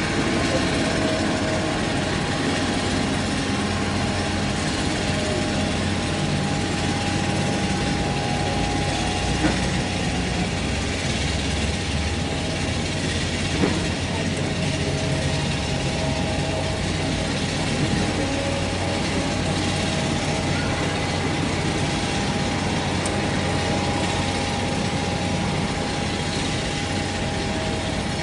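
Boeing 737-800's CFM56 turbofan engines running at taxi power as the airliner taxis: a steady rush of jet noise with a constant whining tone.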